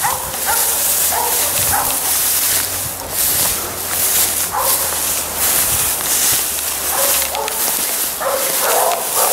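Hunting dogs barking in short, scattered barks with a run of barks near the end, over a steady high hiss; the pack giving tongue while working a wild boar.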